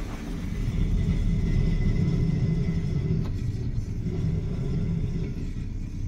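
2018 Skoda Superb driving with a steady low road rumble, with a faint high tone from the rear brakes as they are applied, lasting about two seconds. The noise comes from the original rear brake pads, worn down at 83,000 km and scoring the disc.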